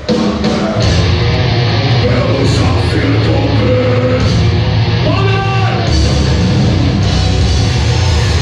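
Death metal band playing live at full volume, with distorted guitars, bass and drums. The full band kicks in about a second in.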